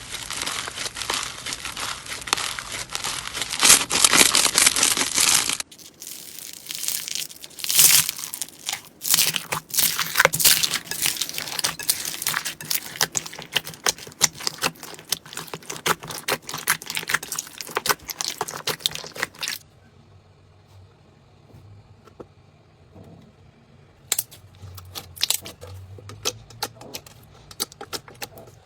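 Slime being squeezed and worked by hand, making dense crackling and popping. The sound changes abruptly about six seconds in and again around twenty seconds in, goes quieter for a few seconds, then returns as sparser sharp pops near the end.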